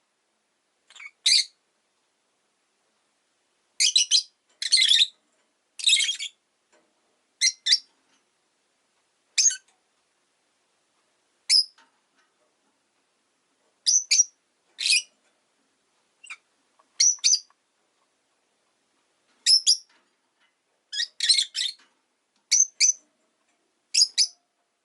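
Rosy-faced lovebird giving short, shrill chirps, singly and in quick pairs, with gaps of a second or two between calls.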